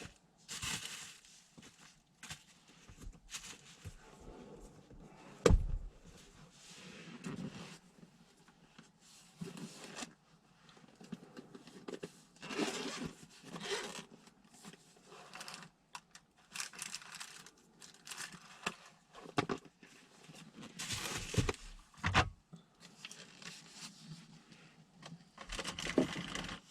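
Irregular rustling, crinkling and scraping noises with a few sharp knocks, the loudest knock about five and a half seconds in.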